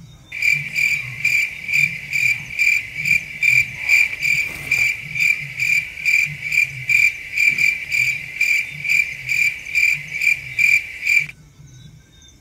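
A cricket chirping loudly in a steady rhythm, about two chirps a second, then stopping abruptly near the end; a fainter chorus of night insects carries on underneath.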